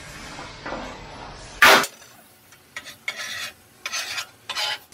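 Hand tools worked on a steel plate: one loud, sharp knock nearly two seconds in, then several short scraping strokes of metal on steel.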